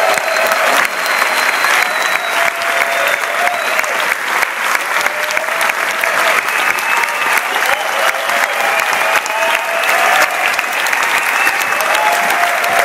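Large audience giving a long, steady round of applause.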